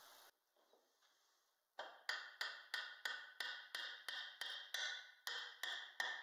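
Claw hammer tapping a glued wooden dowel pin into a joint of a wooden window sash. It starts a couple of seconds in, with quick, even strikes about three a second, each with a short ring.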